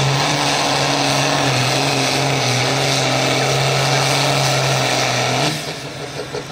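Fiat 1000 tractor's diesel engine running hard under full load, pulling a competition sled: a loud, steady drone. About five and a half seconds in it suddenly gets quieter as the pull ends, the engine still running.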